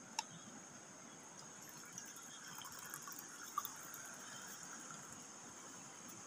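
Faint pouring of coffee from a metal thermos flask into an opened durian husk, with a sharp click near the start and a small knock a little past halfway.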